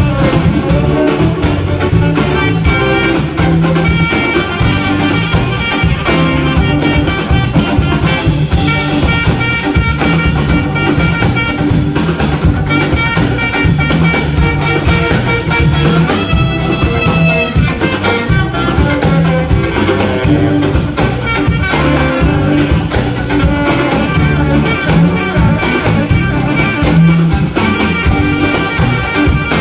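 Live band playing an instrumental break in a blues/New Orleans R&B number, with drum kit, electric guitar and horn carrying the melody over a steady beat.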